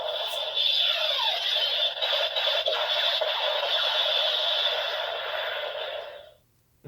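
Electronic finishing-attack sound effects and music from a DX Kamen Rider Saber transformation-belt toy's speaker, triggered with the Tenku no Pegasus Wonderlight Book. A dense, crackling effect with brief swooshes fades out about six seconds in.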